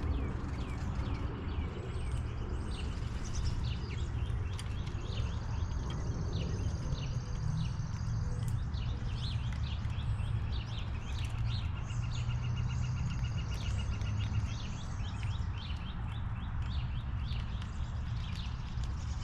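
Several wild birds chirping and calling in short notes, with a fast trill of evenly spaced notes about twelve seconds in, over a steady low rumble.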